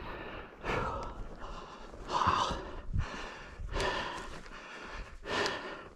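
A man breathing hard, out of breath: four heavy breaths, about one every second and a half.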